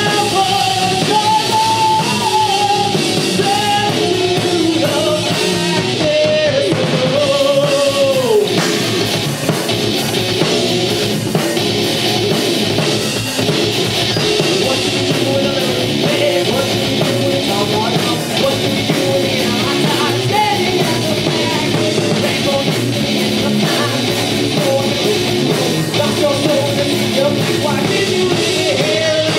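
A live heavy rock band playing at full volume: electric guitar, bass guitar and drum kit, with a singer's voice carrying a melodic line for the first several seconds and coming in again near the end.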